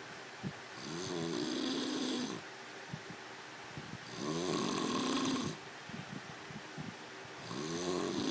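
A sleeping man snoring: three long snores about three and a half seconds apart, each rising in pitch as it starts, with small clicks in the quiet breaths between.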